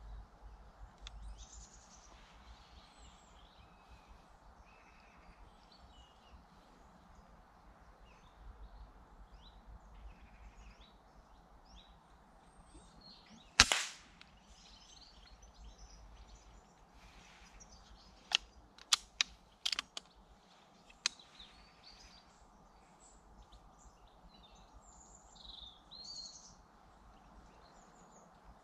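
A single shot from a BSA R10 MK2 .22 pre-charged air rifle, one sharp crack about halfway through. A few seconds later comes a quick run of five or six smaller sharp clicks, with faint birdsong behind.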